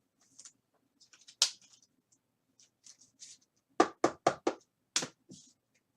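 Hands handling trading cards and their packaging on a table: soft rustles and clicks, a sharp click, then a quick run of four knocks and one more knock near the end.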